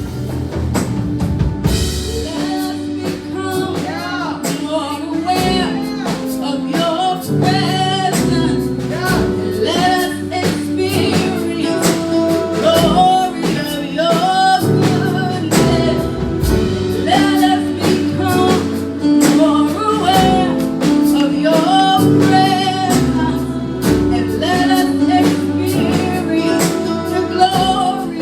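Gospel worship music: a band with bass, drums and guitar plays a steady beat while singers carry the melody.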